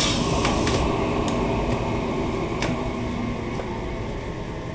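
Vertical panel saw finishing a cut through a wooden panel: the cutting hiss stops just under a second in, then the saw's hum slowly fades. A few light clicks come as the panel is handled.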